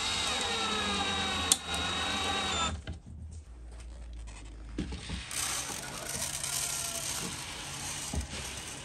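Cordless drill driving a screw through a metal bracket into plywood: a steady motor whine for about three seconds, with a sharp click about halfway through. Then, after a short lull, birdseed is poured from a plastic container into a wooden tray, a soft hissing patter.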